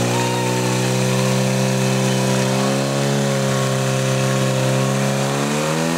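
Portable fire pump's engine running at high revs under load, pumping water to the hose lines, a steady drone that rises slightly in pitch near the end.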